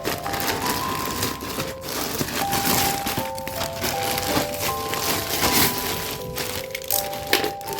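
Background music, a simple melody of held notes, over the crinkling and rustling of packaging being handled, with a few sharp clicks.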